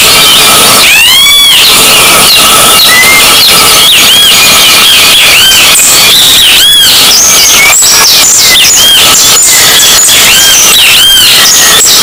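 Great kiskadee (bem-te-vi) singing, its loud arching calls repeated every few seconds. The audio is overdriven and clipped, so the calls come through harsh and distorted over a constant hiss.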